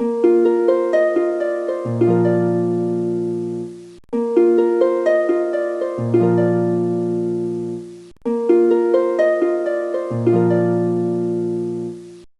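Short harp-like jingle of plucked notes: a quick run of notes that ring out over a held chord, with a low note coming in halfway, played three times with short breaks between.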